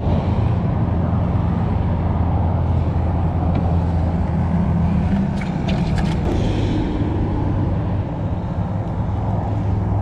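Steady low rumble of road traffic, with a few small clicks and splashes near the middle as a hand rummages in a bucket of live shrimp.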